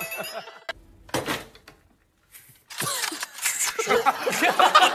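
Edited TV studio audio: a brief sound fades out, a short burst comes about a second in, and there is a moment of near silence at an edit. From about three seconds in, a group of people laughs and chatters.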